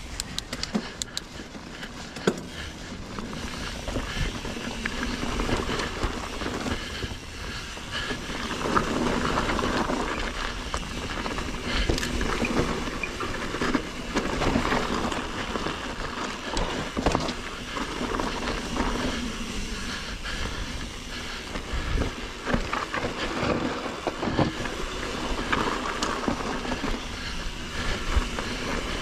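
Mountain bike rolling down a dirt singletrack: tyres running over the rough ground, the bike rattling and knocking over bumps, and wind rushing on the microphone.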